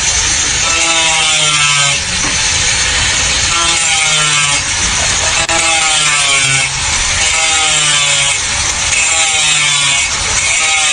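A saw cutting in steady back-and-forth strokes, about one a second, each stroke rasping with a ringing tone that slides in pitch.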